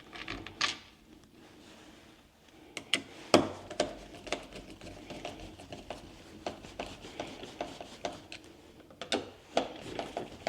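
Machine screws being turned in by hand with a screwdriver to fix a smart lock's interior unit to its back plate: small irregular clicks and scrapes of metal on metal, with one sharp knock about three seconds in.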